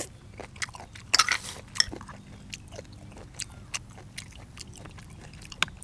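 A person chewing and crunching food close to the microphone: irregular sharp clicks and smacks, with a louder crunchy burst about a second in.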